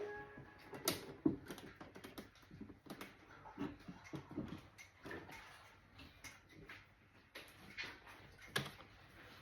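Irregular light clicks, taps and knocks from a laptop being handled, with a brief tone right at the start.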